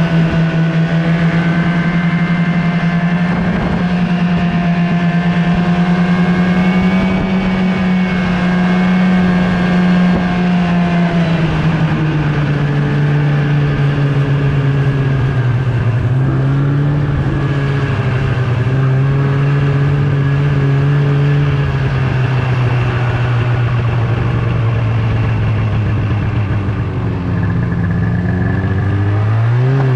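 Snowmobile engine running steadily at cruising speed. Its pitch drops about twelve seconds in and rises sharply near the end as the throttle opens.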